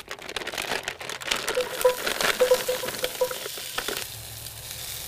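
Brussels sprouts frying in a pan, with irregular crackling and clicking and a few short squeaks as they are seasoned and stirred. A steadier sizzle takes over near the end.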